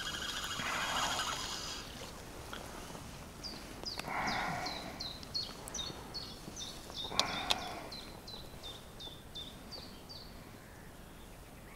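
A bird singing a long series of short, repeated downward-slurred notes, about three a second, with brief gusts of rustling noise and a couple of sharp clicks in the middle.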